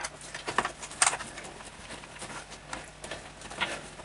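Screwdriver working out the screws that hold a Yamaha DX11 synthesizer's keyboard assembly: a few short clicks and scrapes of the tool and screws, with light handling rustle in between.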